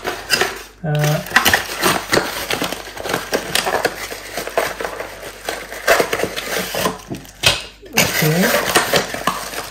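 Hands unpacking plastic packaging and clipper parts: a string of quick, irregular clicks, rattles and rustles as pieces are pulled out and handled.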